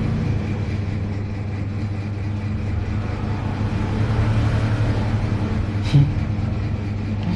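Cordless hair clipper's motor running with a steady hum, with one short click about six seconds in.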